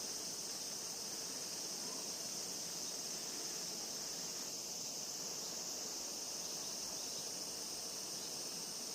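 Insects droning steadily in summer heat, one continuous high-pitched trill that does not change.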